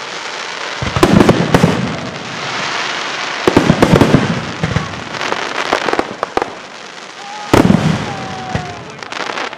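Fireworks going off: loud booming bursts about a second in, again around three and a half seconds in and near seven and a half seconds, with crackling between the bangs.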